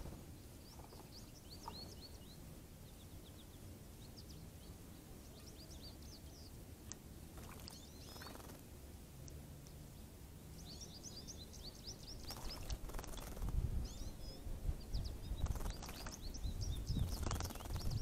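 Small songbirds chirping in quick high series, while a female northern cardinal bathes in a shallow bird bath, with several bursts of splashing in the second half that are the loudest sounds.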